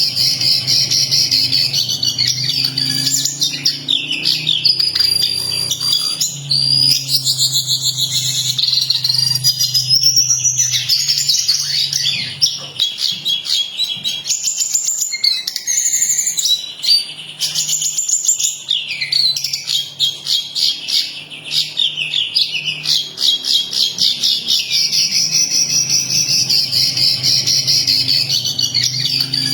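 Jongkangan coklat songbird singing continuously in fast, high-pitched chattering trills and rapidly repeated notes, the kind of song used as masteran to tutor caged songbirds. A low hum comes and goes underneath.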